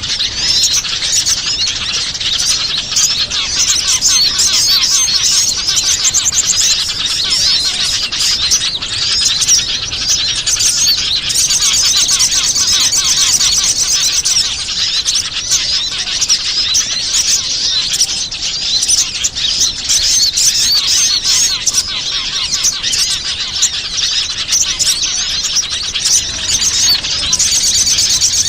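Dense chorus of many small birds chirping and twittering over one another without a break, a bird-luring (pikat) recording for drawing in wild small birds.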